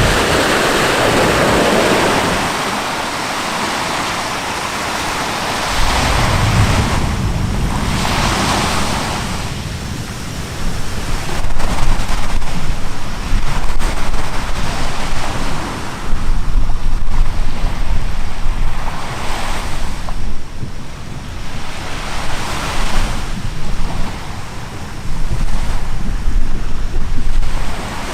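Wind buffeting the microphone over the wash of sea waves. From about ten seconds in, loud gusts come and go every few seconds.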